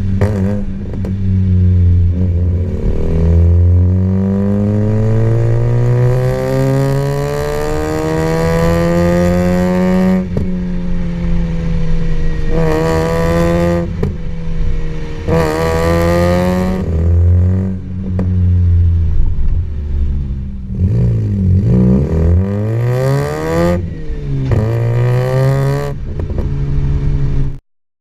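A tuned car's engine and exhaust under hard acceleration. The engine note climbs steadily for several seconds, then falls away, repeating: one long pull, then several shorter revs.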